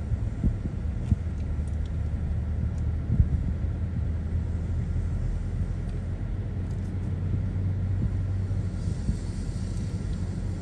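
Low, steady rumble of a car driving slowly, heard from inside the cabin: engine and tyre noise, with a few light knocks, the loudest about three seconds in.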